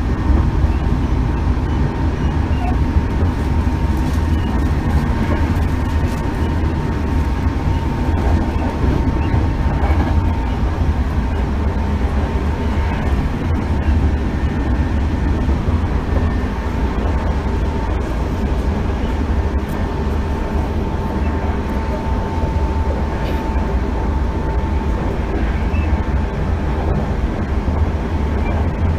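Hankyu 8000 series electric train running, heard from inside the passenger car: a steady, loud low rumble of wheels on rails with a steady whining tone over it.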